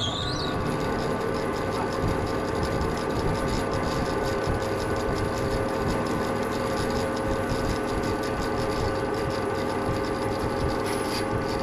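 Large band saw running steadily as a heavy timber is fed into its blade to cut a boat frame. A brief rising whine comes right at the start.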